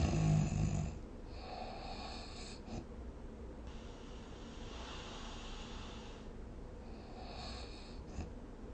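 A person snoring in their sleep. A loud, low snore carries into the first second, then quieter hissing breaths follow every two to three seconds.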